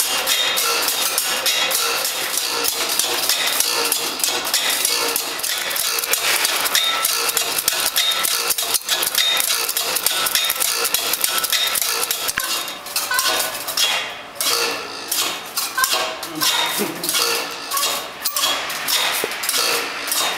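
A coil of metal wire spinning on a payoff stand as it is wound off onto a hand-cranked reel: a dense metallic rattling and jangling of the wire turns. About two-thirds of the way through it breaks into pulses a little over once a second.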